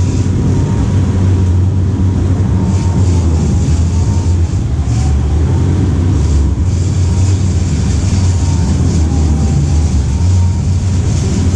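Game-fishing boat's engines running steadily under way, a low drone with the rush of wake water and wind, and a faint wavering whine over the top.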